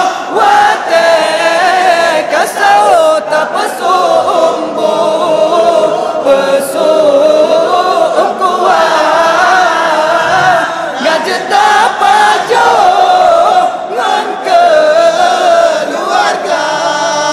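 Singing voice holding long, wavering melismatic notes with few clear words: a melodious sahur wake-up song calling people to rise for the pre-dawn Ramadan meal.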